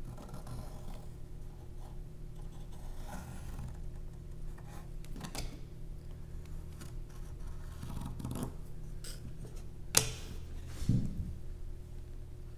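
Pencil scratching in short strokes as it traces around a template on a pine board. A sharp tap comes about ten seconds in, followed a second later by a dull knock.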